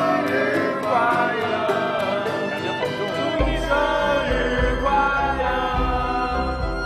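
Background music: a song with singing over a light beat, with a bass line coming in about halfway through.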